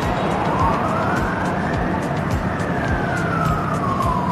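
An emergency vehicle's siren wailing, its pitch rising slowly over about two seconds and then falling slowly over the next two and more, over a steady hum of street traffic.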